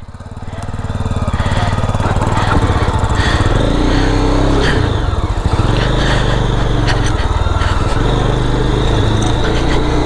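Motorcycle engine running as the bike gets under way, getting louder over the first two seconds, then running steadily.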